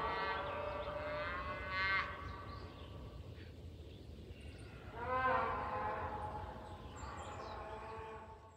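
Cows mooing: two long moos. The first rises in pitch and ends loudest about two seconds in; the second starts about five seconds in.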